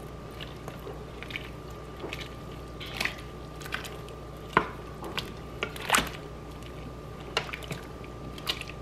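Wooden spoon stirring biscuit-dough dumplings in broth in an Instant Pot's stainless steel inner pot: irregular wet squishes and knocks of the spoon against the pot, the loudest about six seconds in.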